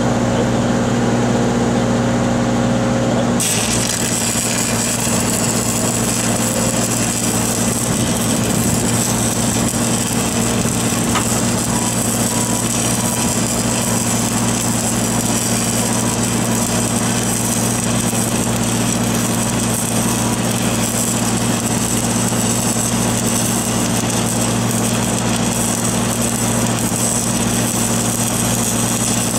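Stick welding arc crackling and hissing on steel pipe during a fill or cap pass; it strikes suddenly about three seconds in and burns on steadily. Under it an engine hums steadily throughout.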